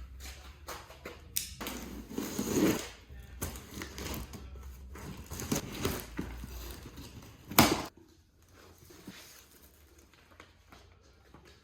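Scattered knocks and rustling handling noise over a low steady hum, with one sharp loud click about two-thirds of the way through, after which the hum stops.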